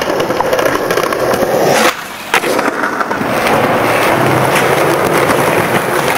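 Skateboard wheels rolling on concrete: a steady loud rolling rumble with scattered clicks. It drops off briefly about two seconds in, then a sharp clack and the rolling starts again.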